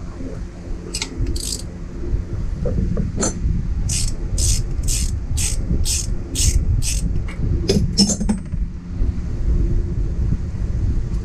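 Ratchet wrench with a 10 mm socket clicking in a run of even strokes, about two a second, as the ABS wheel speed sensor bolt is backed out of the steering knuckle, with a few single metal clicks before and after. A steady low hum runs underneath.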